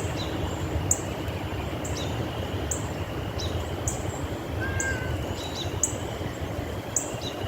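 A bird repeating a short, high chirp that slides down in pitch, about once or twice a second, over a steady low background rumble.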